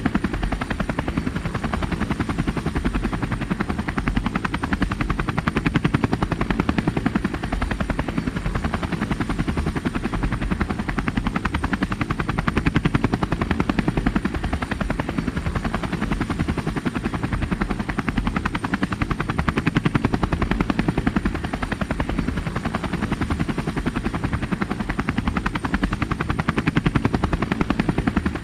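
Helicopter in flight: the rapid, even chop of the main rotor blades with engine noise, holding steady and swelling gently every several seconds.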